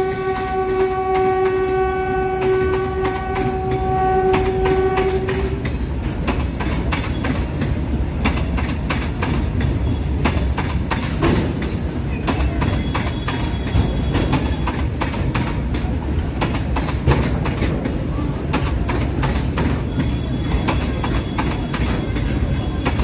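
A WAG-7 electric freight locomotive's horn sounds one steady chord for the first five seconds or so as it passes. A long train of tank wagons then runs past close by, wheels clattering over the rail joints in a rapid clickety-clack over a constant low rumble.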